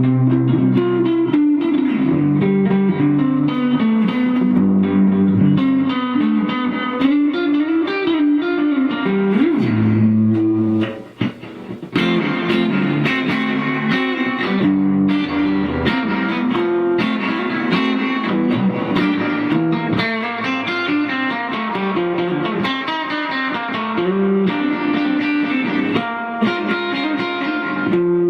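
Electric guitar, an AliExpress copy of a Rickenbacker 315 (a 'Chickenbacker'), played as lead: a run of single notes and short phrases, with a brief break about eleven seconds in.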